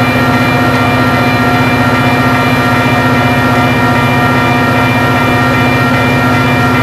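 EMD F40PH diesel-electric locomotive standing at the platform with its engine running at a steady speed, giving a constant throb with a steady whine on top.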